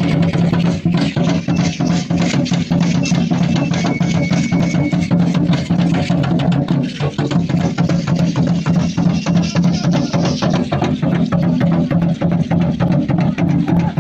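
Music with fast, dense drumming and wood-block knocks over a steady low drone.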